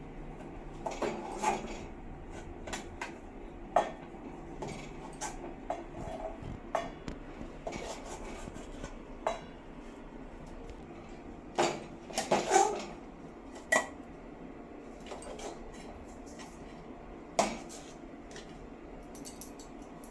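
Steel spoon scraping and clinking against a steel kadai and stainless-steel plates as upma is served out: irregular clinks and scrapes, the loudest cluster about twelve seconds in.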